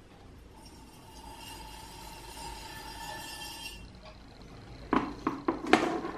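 Cutting wire drawn through the clay under a freshly thrown espresso cup on a turning potter's wheel: a faint steady hiss with a thin whine that stops about four seconds in. Near the end comes a quick run of sharp knocks and clinks, louder than the wire.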